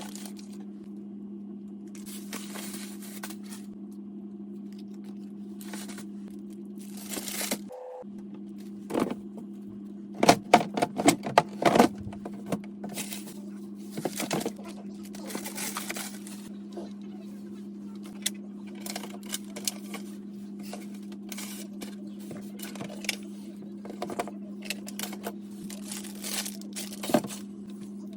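Plastic produce bags rustling and crinkling in short spells as vegetables are handled and packed into a refrigerator's vegetable drawer, with a quick run of sharp clicks and knocks about ten seconds in. A steady low hum runs underneath.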